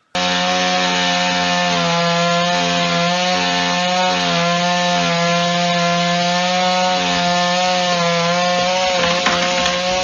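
Chainsaw running at full throttle and cutting through a tree limb, a loud steady high-pitched drone that barely wavers. In the last second there are a few sharp cracks as the limb starts to break away.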